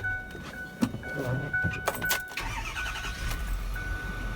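2008 Ford F-450's engine being cranked and catching about two seconds in, then running steadily at idle. A repeating electronic beep sounds throughout, with a few clicks before the start.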